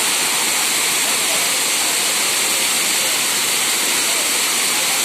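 Waterfall: a steady, unbroken rush of falling water, loud and even throughout.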